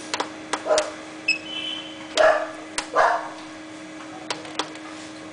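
ST-10 button wrapping and knotting machine in motor test mode: a steady hum under irregular clicking as the forward-backward and wrapping motors move front and back. A short beep comes about a second in, and there are a few louder short sounds.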